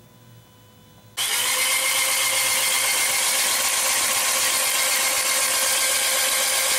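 The 1999 VW Passat's 1.8-litre turbo four-cylinder turned over by its starter motor with the spark plugs removed, a steady, even cranking whir with no compression strokes, cutting in suddenly about a second in as the engine is spun to test for spark. Before it, the faint hum of the fuel pump priming.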